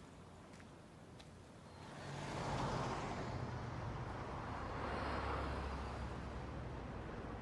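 Car traffic with road noise and a low engine hum, swelling about two seconds in as vehicles pass.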